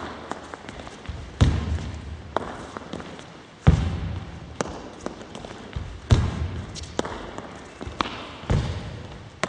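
Badminton footwork on a hall court: heavy lunge steps thudding on the sports floor four times, about every two and a half seconds, each ringing out in the big hall. Lighter sharp taps from shoes and racket contacts come between them.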